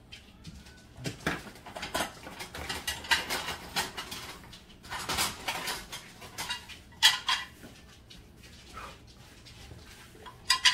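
Kitchen clatter: cookware and dishes being handled and knocked about, with scattered rustles and a couple of sharp knocks, one about seven seconds in and one near the end.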